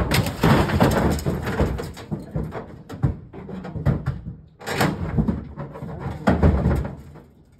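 Two bull moose fighting: antlers clashing and bodies knocking in a rapid clatter. It is densest in the first two seconds, with further heavy knocks about five seconds in and again about six and a half seconds in.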